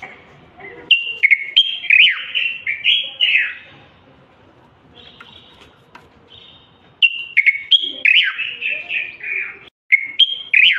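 Bulbul singing: two bursts of quick, fluty warbled phrases with sliding notes, the first starting about a second in and the second about seven seconds in, with only faint notes between them.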